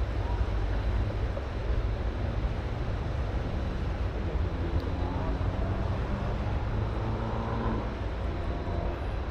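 Steady rush of flood-high river water at a dam, with wind buffeting the microphone.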